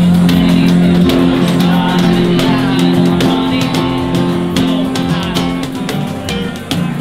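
Guitar band music: guitars playing held chords over a steady percussion beat, starting abruptly.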